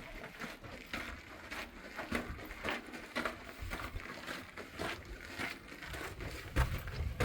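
Footsteps crunching on loose ground, about two steps a second, with a low rumble beneath.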